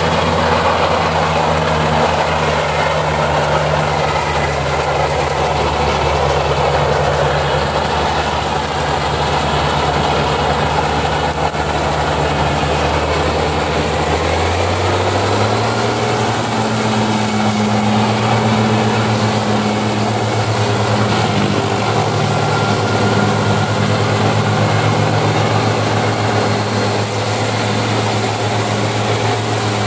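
Tractor diesel engine running under load, driving a belt-driven rotary mower through tall grass. About halfway through, the engine note steps up to a higher pitch and then holds steady.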